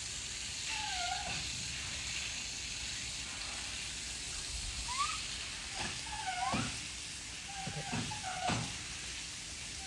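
Japanese macaques giving short, soft coo calls, single rising or bending tones, a few scattered through and several close together in the second half, over a steady faint hiss.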